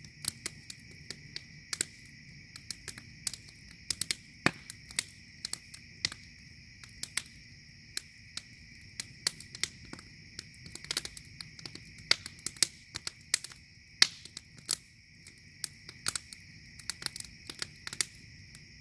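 Wood fire crackling and popping irregularly as split logs burn in a hanging metal pot, several sharp pops a second at times, some throwing sparks. A steady, faint high-pitched drone runs underneath.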